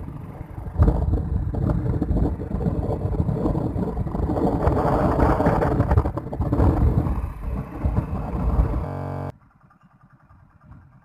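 Motorcycle in motion, heard from the rider's seat: engine and rushing noise. The sound cuts off suddenly about nine seconds in, leaving it much quieter.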